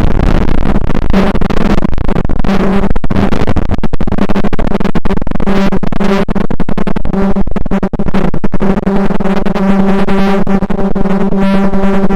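Loud electronic music: a choppy, scratchy texture that settles, about three quarters of the way in, into a steady low synthesizer tone with overtones building above it.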